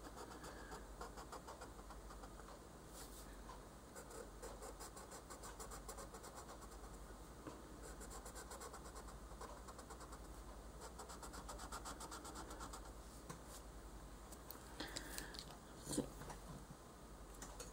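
Colored pencil scratching on paper in rapid, light shading strokes. A couple of soft knocks near the end.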